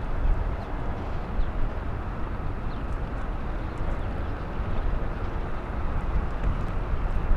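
Wind buffeting the camera microphone: a steady low rumble that swells and dips in gusts, over a general outdoor hiss.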